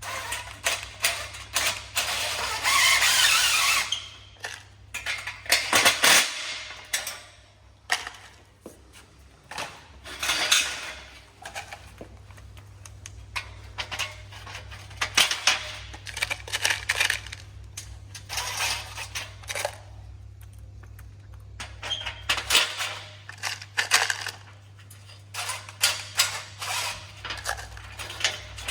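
Metal greenhouse frame parts clattering as they are bolted together with M5 bolts and nuts, with short bursts from an impact driver running the bolts in. A steady low hum sits beneath.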